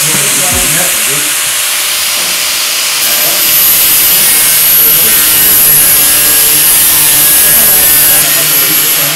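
Angle grinder grinding down a welded seam on a sheet-steel car body panel: a steady grinding hiss with a high whine that gets louder from about three seconds in until near the end.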